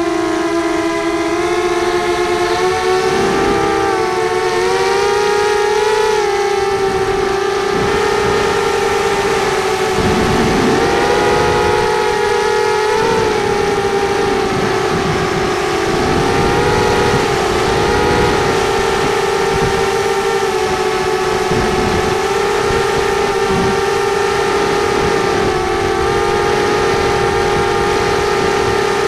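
Racing quadcopter's motors and propellers whining at a high, steady pitch that wavers slightly up and down with throttle.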